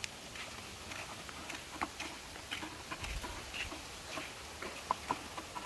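Faint, irregular light clicks and taps, a few a second, with a couple of short faint high chirps near the end.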